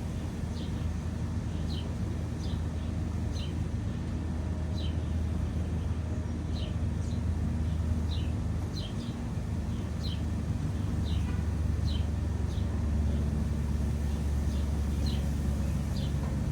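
Small birds chirping: short, high chirps repeating irregularly about once a second, over a steady low rumble.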